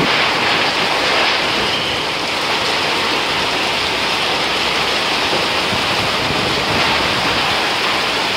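Torrential rain pouring down in a steady, loud rush, driven by strong cyclone winds.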